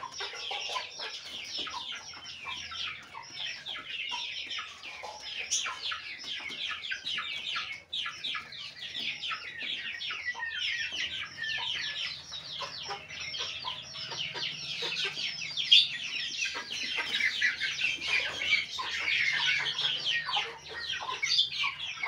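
Flock of young Aseel chickens peeping and cheeping, a dense, continuous chorus of short high calls, with one brief louder knock about two-thirds of the way through.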